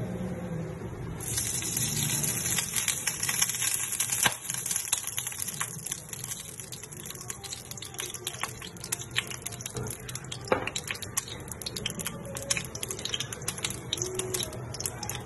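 Cooking oil heating in a non-stick wok, sizzling and crackling with many small pops; the sizzle brightens about a second in.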